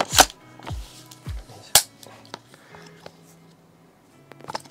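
Two sharp metallic clacks about a second and a half apart from the action of a VFC BCM MCMR gas-blowback airsoft rifle being worked by hand, with its steel bolt and charging handle. A few lighter clicks come near the end, over background music with a steady bass beat.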